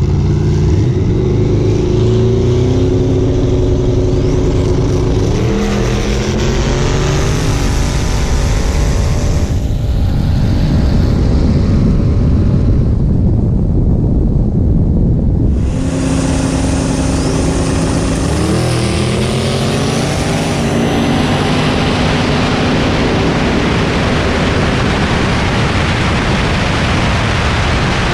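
Twin-turbocharged V8 drag cars launching at full throttle, the engine pitch climbing and dropping back at each gear shift. There are two such pulls, one from the start and another about halfway through. Wind and road noise fill the gap between them and the time after.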